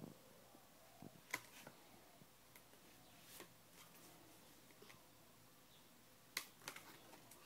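Faint, scattered clicks and taps as a small child handles a picture book and turns its pages, with a couple of sharper clicks a little over a second in and near the end.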